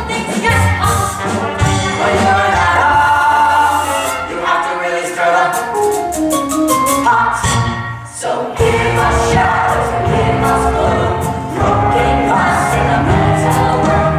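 A stage-musical cast singing together in chorus over musical accompaniment, with a brief break a little past halfway before the singing comes back in.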